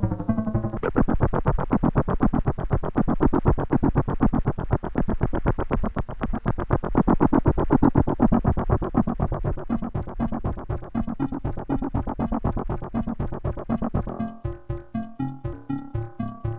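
Behringer Neutron analog synthesizer playing a fast repeating sequenced pattern of pitched notes. Near the end it drops back to a thinner, sparser pattern of separate notes.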